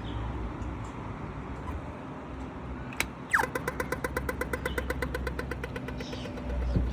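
Australian pedestrian crossing signal: a single click, then a quick falling laser-like 'pew' and about three seconds of rapid, even ticking that signals walk. Road traffic rumbles underneath.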